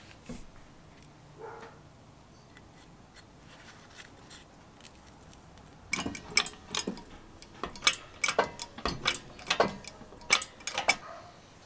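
Faint handling taps, then from about halfway a run of sharp metal clicks and clinks, about a dozen in five seconds, as the drill's gear housing and a steel socket are handled and set up on a hydraulic press.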